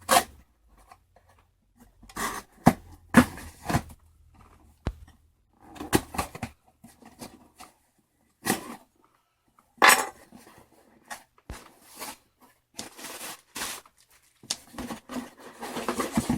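Game controller's product box being opened and its packaging handled: irregular clicks, scrapes and rustles of cardboard and plastic, with a longer stretch of rustling near the end.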